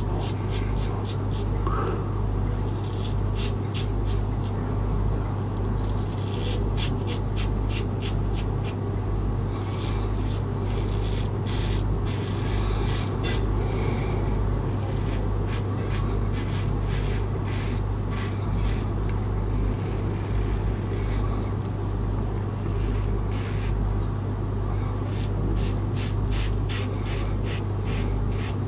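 Brass Karve Christopher Bradley closed-comb safety razor with a Nacet blade cutting lathered stubble: runs of fine, rapid crackling scrapes, one cluster of strokes every few seconds. A steady low hum sits underneath.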